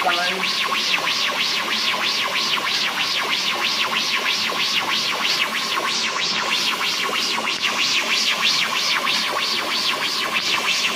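Music with a fast steady beat: high, hi-hat-like ticks about four to five times a second over a steady background.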